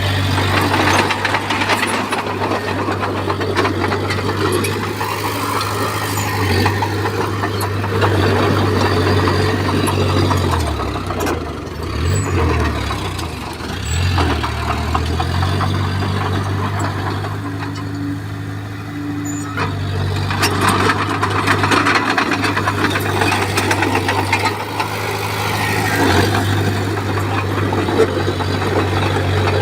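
Komatsu bulldozer's diesel engine running steadily under work, with clattering noise over it. The engine speed dips and comes back up twice in the middle.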